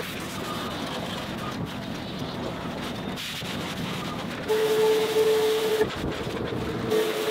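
Pressure washer in use on a car's wheel and arch: a steady hiss, with the pump's steady hum cutting in about four and a half seconds in for just over a second, then again near the end.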